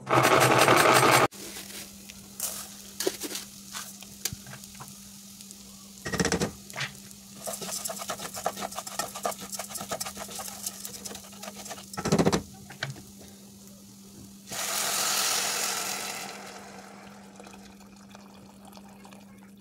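A pull-cord manual food chopper whirring, cut off about a second in. Then rice being stirred in a hot pot with a spatula, scraping over a steady low hum, with two knocks, and a loud rushing hiss partway through as hot water is poured onto the rice, fading over a couple of seconds.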